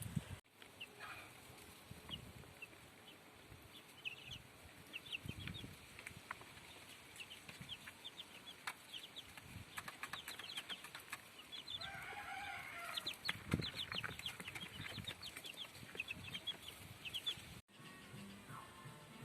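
Chickens in a yard clucking, with many short high chirps throughout and one longer, pitched call about twelve seconds in.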